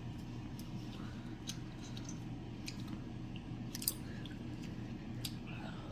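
Chewing a mouthful of clam meat: small wet mouth clicks and smacks at irregular intervals, with one sharper click about four seconds in.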